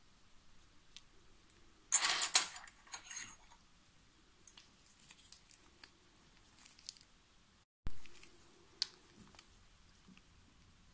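Thin clear plastic film crinkling as it is laid over a watch dial, loudest about two seconds in, then lighter rustles. A dull thump about eight seconds in, then a few small sharp clicks.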